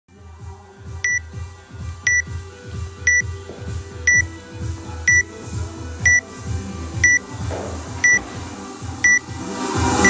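Countdown timer beeping once a second, a short high beep each time, over background music with a steady beat that gets louder near the end.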